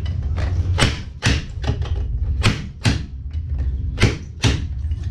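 Fork seal driver knocking a new seal into a motorcycle fork leg: a string of sharp metal knocks, roughly two a second with short pauses, as the seal is seated down past the snap ring groove.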